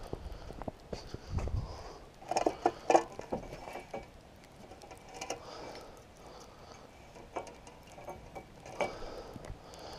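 A metal gooseneck pole-light fixture and its wires being handled on wooden deck boards: scattered knocks and rattles, with a cluster of sharp knocks about two and a half to three seconds in and another single knock near the end.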